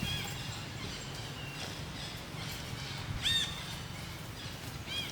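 A monkey giving three short, high-pitched squeaking calls, each rising and falling in pitch, over a steady low hum.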